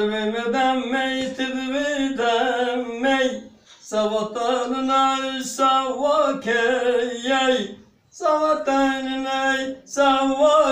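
Two men singing a duet without accompaniment, in long held, wavering phrases, with two short pauses for breath between them.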